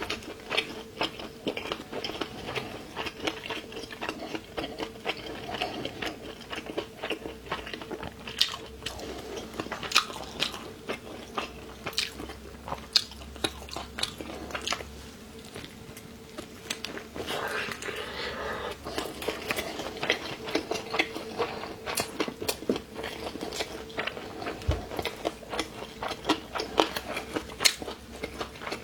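Close-up crunching and chewing of a rolled noodle-sheet wrap filled with crunchy dried radish and chili: many sharp crunches as the radish is bitten and chewed.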